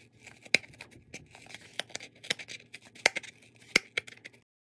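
Small scissors snipping through cardboard, a string of sharp snips at uneven intervals of roughly half a second to a second, as the blades work around a hole cut in the centre of a cardboard disc.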